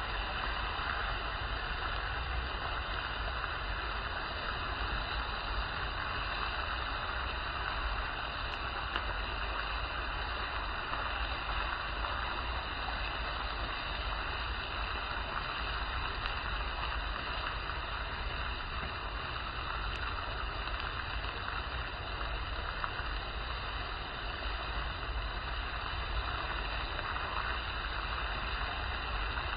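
Bone-in beef steak sizzling on a grill over open flames: a steady, even hiss with a low rumble beneath it.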